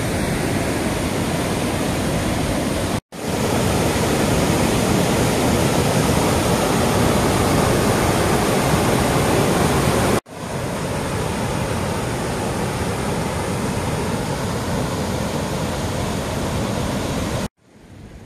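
Waterfall and river rapids over rock ledges, a steady rushing of water. It cuts off abruptly and resumes twice, loudest in the middle stretch. Near the end it gives way to a much quieter outdoor hush.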